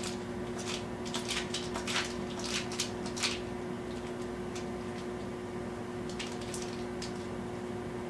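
Kitchen knife cutting a block of Velveeta into small cubes on a wooden cutting board: light taps of the blade against the board, quick in the first few seconds and sparser after, over a steady low hum.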